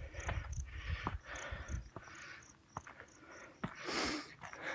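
A hiker breathing hard in repeated short breaths while climbing, with a few footfalls. Insects chirp behind in a steady rhythm of short high chirps.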